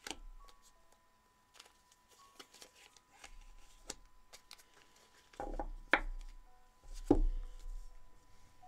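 Tarot cards being laid down and slid into place on a cloth-covered table: a series of soft taps and short rustles, with two louder knocks about six and seven seconds in as a card deck and the hands are set down on the table.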